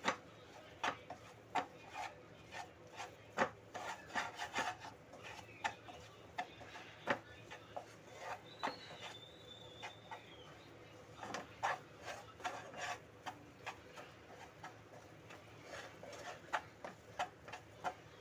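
Slotted wooden spatula stirring and scraping besan as it roasts in ghee in a pan: irregular rasping scrapes and light taps against the base of the pan. This is the slow roasting that takes the rawness out of the gram flour before it browns.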